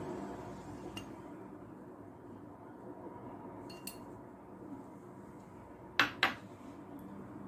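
Kitchen utensils clinking against dishes: a few light clicks, then two sharp knocks close together about six seconds in, over a steady low background noise.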